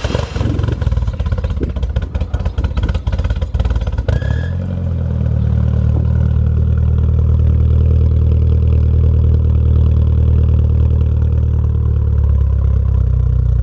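Nissan 240SX (S13) four-cylinder engine running just after start-up, heard at the tailpipe of its new homemade straight-through 3-inch cat-back exhaust. It is uneven at first, then settles into a steady, deep idle about four seconds in.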